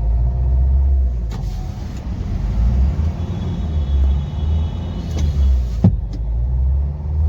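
Nissan Terrano's 1.5-litre four-cylinder diesel engine running rough under way, with a heavy, uneven pulsing rumble and a clattering knock ("kadkad"). The misfire and knock come from a weak injector; fault code P0203 points to an open circuit on the cylinder 3 injector. A sharp click about six seconds in.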